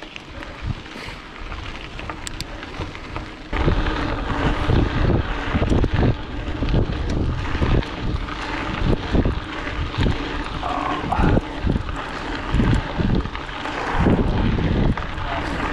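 Wind buffeting the camera microphone of a mountain bike riding fast on a gravel road, with tyre noise from the gravel underneath; the low gusts come and go irregularly. It jumps louder at a cut about three and a half seconds in.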